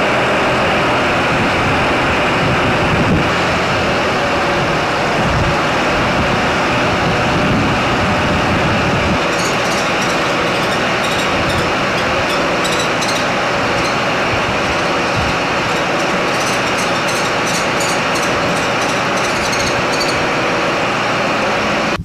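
Hydraulic aerial work platform (boom lift) running steadily with a continuous engine noise. Its low rumble drops about nine seconds in, and light clicking and rattling follow through most of the rest.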